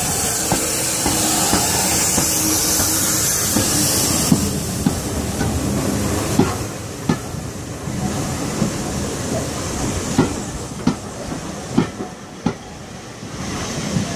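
Ex-Southern Railway 4-6-2 steam locomotive 34027 drifting into a station: a loud steam hiss as the engine passes for about the first four seconds, then its coaches rolling slowly by with irregular clicks and clanks of wheels over the rails.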